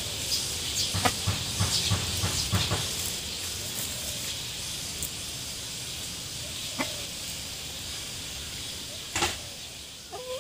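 Chicken scratching and pecking through dry leaf litter: a quick run of leaf rustles and crackles in the first few seconds, then a couple of single crunches later on, over a steady high hiss.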